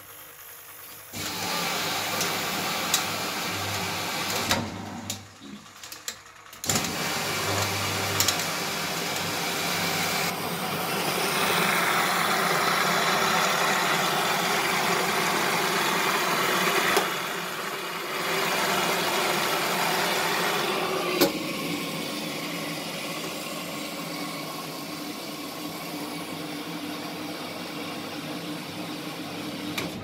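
Miele WS 5406 washing machine filling: water rushing in through the detergent drawer, starting about a second in, with a short break about five seconds in.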